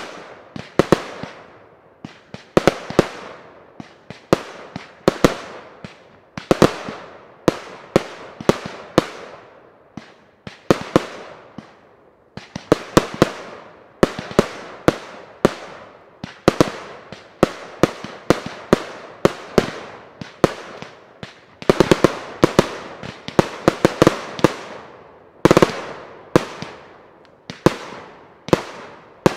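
Firework batteries firing a continuous display: sharp bangs one after another, each trailing off in a decaying echo, with rapid volleys of shots about two-thirds of the way through and again near the end.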